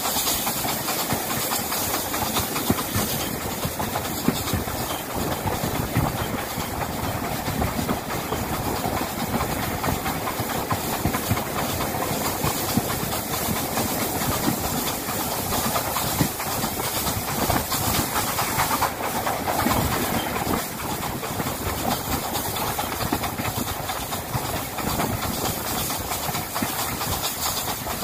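Train hauled by a USATC S160 2-8-0 steam locomotive running along the line, heard from an open carriage window: a steady rushing hiss of steam and wind with the rattle of the carriage running over the track.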